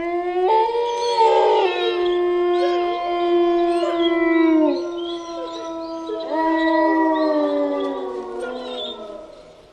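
Several wolves howling together in overlapping long calls that hold and then slide down in pitch, fading out near the end.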